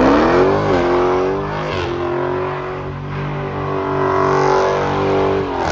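Dodge Charger Scat Pack's 392 HEMI V8 held at high revs during a burnout, tyres spinning. The revs dip briefly about a second in and again near two seconds, then fall off at the very end.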